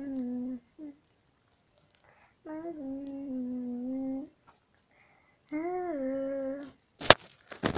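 A girl humming a tune with her mouth closed, in three held phrases whose notes bend gently up and down. A sharp click comes near the end.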